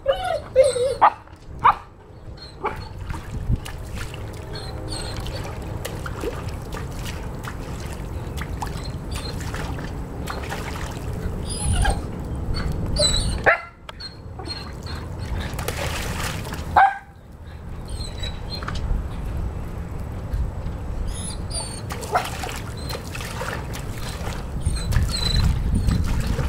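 Young Weimaraner whining in short high-pitched whimpers and the odd yip, in distress over its toy floating out of reach in the pool, over a steady low rumble. Near the end a paw splashes in the water.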